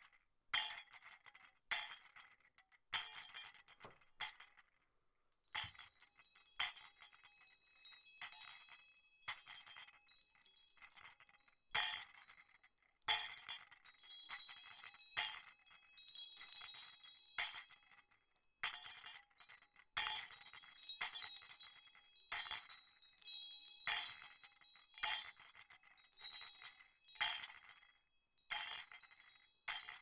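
Jingle bells shaken in a steady rhythm, one or two jingles a second. After a short pause about five seconds in, the shaking continues with an accent about once a second, and from about halfway the small bells ring on between strokes.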